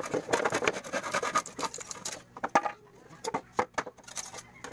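Handsaw cutting through plywood in quick rasping strokes, finishing the cut about two seconds in; a few separate knocks and taps follow as the cut-off piece comes free.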